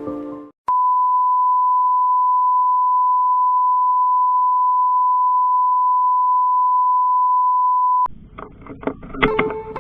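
A single steady electronic beep, one pure unchanging tone, starting just under a second in, held for about seven seconds and cut off suddenly. Short plucked notes and music come in near the end.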